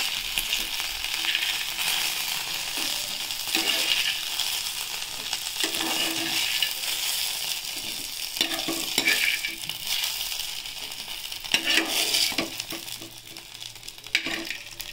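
Small aubergine pieces sizzling in hot oil in a frying pan, with a metal spoon scraping and clinking against the pan as they are lifted out. The sizzle dies down near the end.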